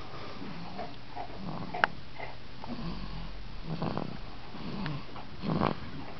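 Sleeping wolf cub snoring, a snoring breath every second or two, the loudest a little before the end. A single sharp click about two seconds in.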